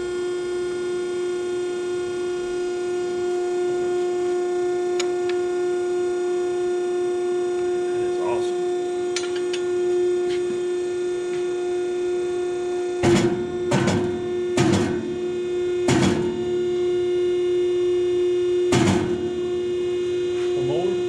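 Hydraulic ironworker running with a steady motor-and-pump hum. In the second half, about five heavy thunks come at uneven intervals as it works steel.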